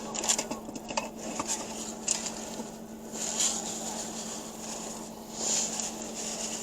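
Someone eating in a car: scattered light clicks and rustles from handling food and its packaging over a steady low hum.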